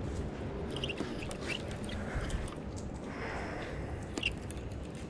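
Wind buffeting the microphone in a steady low rumble, with a few short high chirps over it.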